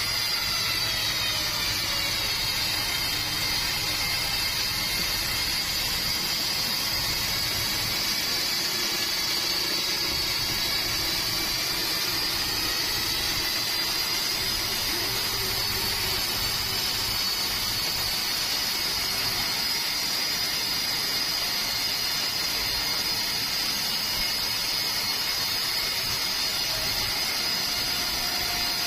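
Band sawmill blade ripping lengthwise through a 5-metre keruing hardwood log. The saw runs with a steady high whine over machine noise, its pitch sagging a little and coming back a couple of times.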